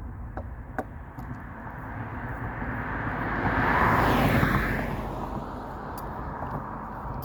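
A road vehicle driving past: its tyre and engine noise swells to a peak about four seconds in, then fades away.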